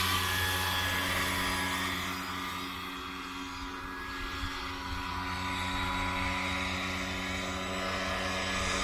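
Large electric scale RC model helicopter (AgustaWestland AW139 model, Kontronik Pyro 800-48 electric motor) flying a low pass: a steady rotor hum with a higher whine over it. It fades a little about three seconds in and grows louder again near the end as the model comes back.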